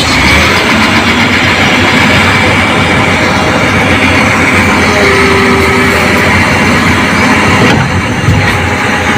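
Heavy construction machinery's diesel engine running loud and steady.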